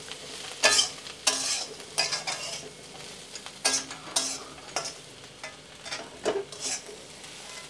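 Spatula scraping and stirring dried Bombay duck (bombil) and onions around a kadhai in irregular strokes, over a low sizzle of them frying in oil.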